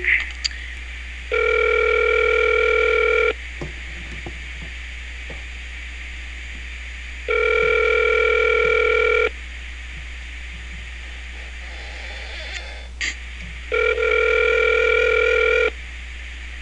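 Telephone ringback tone on an outgoing call: three steady two-second rings about six seconds apart. The call rings unanswered before going to voicemail.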